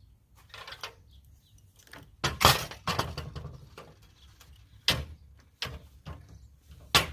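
A series of irregular knocks and clatters of things being handled, the loudest cluster about two seconds in, then single knocks every second or so.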